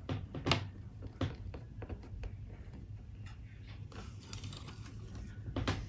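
Pencil drawing a line along a clear plastic ruler on a notebook page, with light scratching and scattered small clicks and taps as the ruler and set square shift on the paper, a little louder just before the end.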